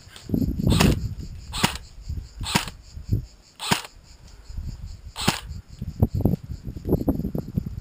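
Airsoft rifle firing single shots, five sharp cracks spaced about a second apart and then stopping, with a low rumble between them.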